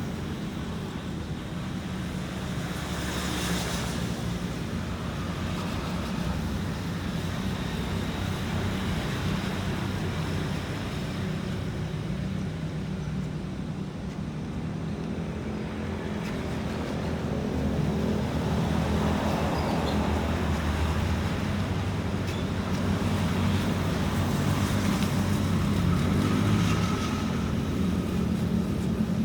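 Steady road traffic noise from a busy road, with a few vehicles passing.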